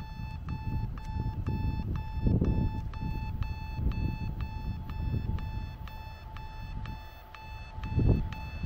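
Railway level-crossing warning signal beeping rapidly, about three to four beeps a second over a steady tone, while a freight train rumbles past with surges of low clatter, the loudest near the end.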